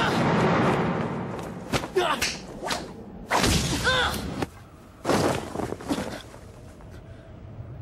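Cartoon fight sound effects: a run of whooshes and thuds from swung blows and hits, with short shouts and grunts among them. It goes quieter after about six seconds.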